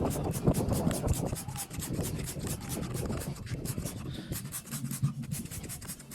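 Hand trigger spray bottle spraying degreaser onto car seats in quick repeated squirts, with rubbing handling noise underneath.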